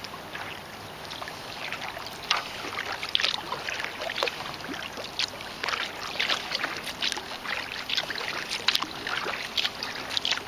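Kayak paddle dipping into calm lake water, with irregular small splashes and drips from the blades.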